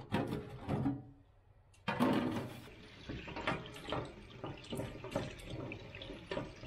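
Tap water running into a stainless steel sink as a mud crab is cleaned under it, with hands scrubbing and scattered knocks of crab shell against the sink. After a brief hush, the water starts about two seconds in.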